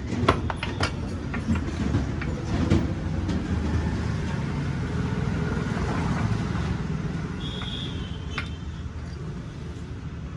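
Steady low vehicle rumble, swelling slightly midway and easing off, with a few sharp metal clicks and clinks in the first three seconds as the motorcycle's rear wheel is handled.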